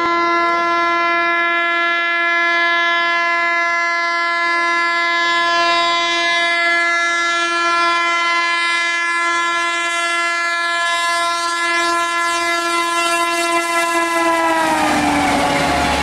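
WAP-7 electric locomotive of the Howrah Rajdhani Express sounding one long, steady horn blast as it approaches at speed. About fifteen seconds in, the horn's pitch drops as the locomotive passes, and the clatter of the coaches' wheels on the rails rises.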